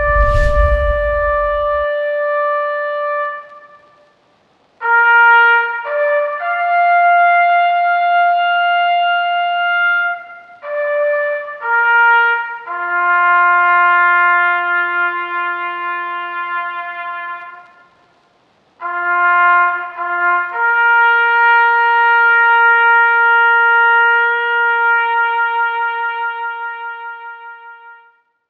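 Solo trumpet playing a slow melody of long held notes, with two short breaks between phrases; the last note wavers and fades out near the end. A low thump at the very start.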